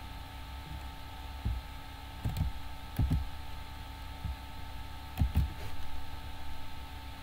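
A few scattered computer keyboard keystrokes and clicks, heard as short, dull thumps over a steady electrical hum.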